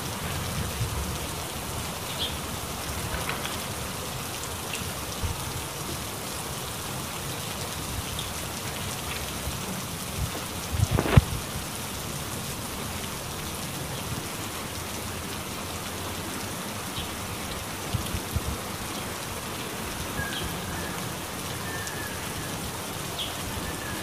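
Steady rain falling, an even hiss of drops, with a single sharp thump about eleven seconds in and a few faint short high chirps here and there.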